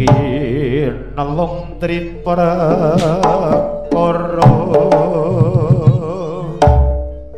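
Live jaranan gamelan music: a wavering, vibrato-laden lead melody over drum strokes, with a deep low stroke near the end.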